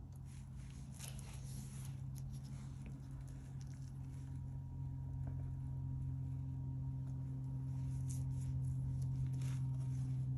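Palette knife scraping and swiping through wet acrylic paint on a canvas, in short scratchy strokes about a second in and again near the end, over a steady low hum that grows louder.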